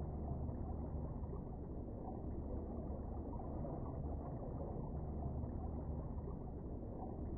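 Steady, muffled low rumble of underwater ambience picked up by a camera in a waterproof housing, with nothing standing out above it.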